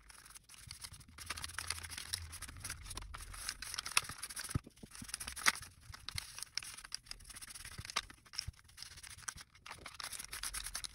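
A sponge and fingers rubbing and smoothing oil-soaked copy paper on a plastic sheet: a soft, irregular scratchy rubbing with many small clicks and crinkles.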